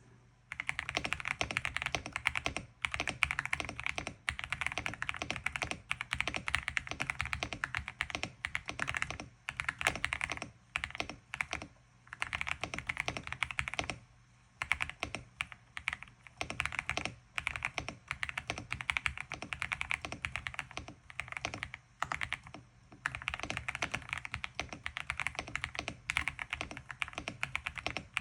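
Typing on a LINGBAO MK75 budget 75% mechanical keyboard: fast runs of keystrokes lasting a few seconds each, broken by short pauses.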